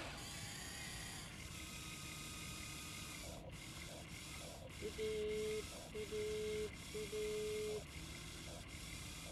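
Huina RC excavator's small motors whining in three short runs at a steady pitch, starting about five seconds in, as the boom and arm move. A steady hiss sits underneath.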